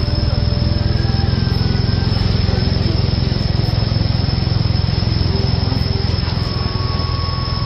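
A small engine running steadily at a constant low rumble, with no revving.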